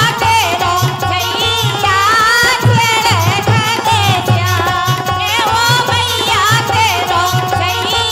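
A woman's voice singing a Kartik geet, a Bundelkhandi devotional folk song, with ornamented rising and falling glides. A hand drum keeps a steady beat underneath.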